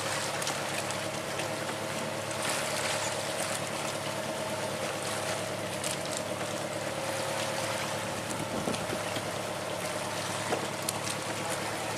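Boat engine running steadily, with water sloshing against the hulls.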